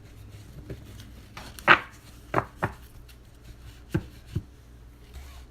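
Trading cards being handled and set down on a table: about five short, sharp taps, the loudest a little under two seconds in.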